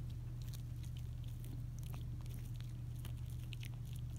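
Small wet mouth clicks and lip-licking from a Pomeranian puppy, faint and scattered, over a steady low hum.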